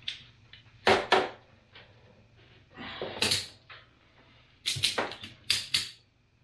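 Ratchet strap being cranked tight around a tractor tire: sharp ratchet clicks and short rasps in three groups, the last and longest with several quick strokes. The strap is squeezing the tire so its broken-loose bead pushes back out against the rim.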